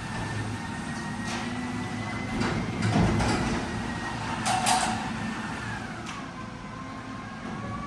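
Newly installed garage door moving on its tracks, with a steady whine that drops in pitch about six seconds in, a few sharp knocks and a low rumble.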